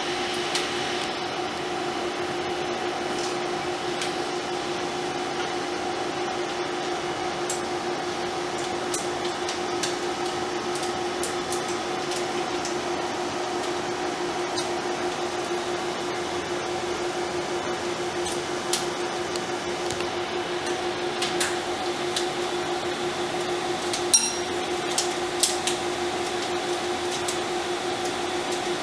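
Steady mechanical hum of projection-booth machinery, with a clear steady tone, under scattered small metallic clicks and taps as 35mm film is threaded by hand through a Cinemeccanica Victoria 5 projector's rollers, sprocket guards and gate. The clicks come closer together near the end, one sharper than the rest.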